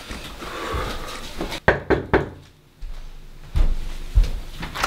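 A house door being handled: a few sharp clicks about two seconds in, then three dull thumps in the last second and a half.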